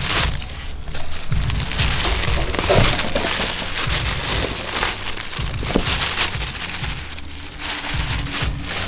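Thin plastic bag crinkling and rustling as it is handled and emptied into a metal bowl, in uneven surges.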